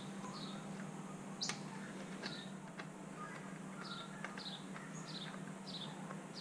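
A small bird chirping over and over, short high falling chirps roughly every half second, with a few faint metallic clicks as a wheel nut is turned off its stud by hand.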